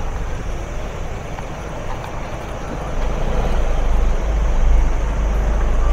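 Motor vehicle running in slow traffic, a steady low rumble of engine and road noise that grows louder about three seconds in.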